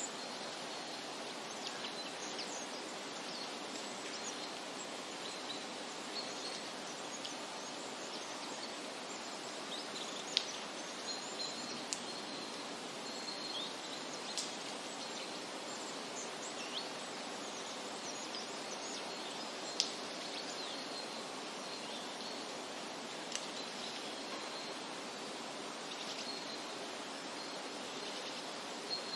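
Steady outdoor rushing noise with short, high bird chirps every few seconds.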